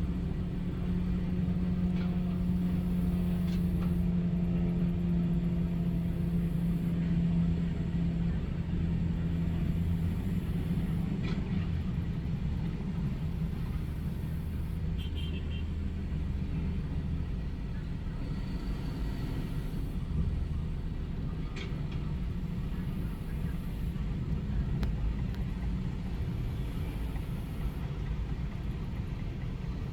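Heavy diesel construction machinery running, a steady low engine drone that is strongest for the first ten seconds or so and then eases to a lower rumble, with a few faint ticks.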